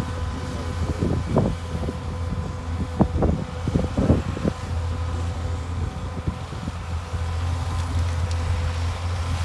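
Caterpillar hydraulic excavator's diesel engine running steadily with a deep drone as it digs and loads soil into a dump truck, with a few short sharp knocks about a second in and again between three and four and a half seconds in.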